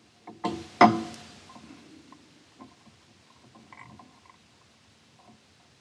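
A sharp knock with a short clatter of smaller knocks just under a second in, ringing on briefly, then a few faint scattered clicks and taps.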